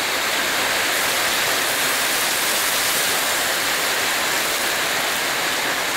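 Heavy rain falling steadily, a constant even hiss.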